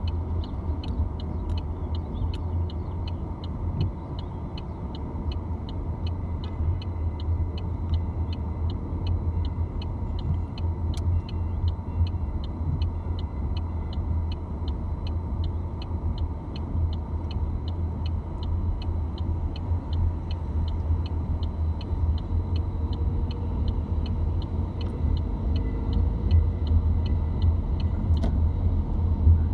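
Car cabin noise while driving: a steady low rumble from the engine and tyres on the road. A faint high tick repeats about twice a second throughout.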